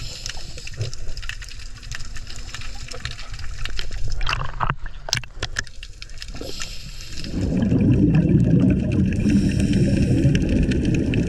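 Underwater water noise picked up by a camera: sloshing and gurgling just under the surface, with a few sharp knocks about four to five seconds in. About seven seconds in it changes to a louder, low rumbling bubble noise.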